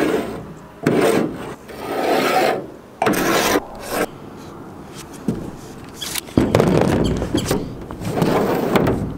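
Repeated scraping and rubbing of wood handled against the bus's metal roof: several short bursts in the first four seconds, a quieter spell, then a longer stretch near the end.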